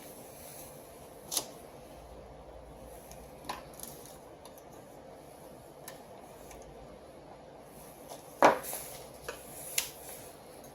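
Scattered clicks and light metallic knocks of small hard parts and tools being handled, at irregular intervals, with the loudest knock near the end.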